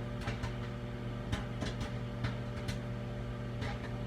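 Microwave oven running with a steady hum while popcorn kernels pop inside a plastic microwave rice cooker: about eight to ten scattered single pops, spaced apart, as the popping goes on near the end of cooking.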